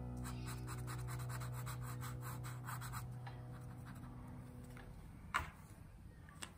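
Felt-tip marker scribbling on paper, quick back-and-forth colouring strokes several times a second, thinning out after about three seconds. A single sharp click near the end.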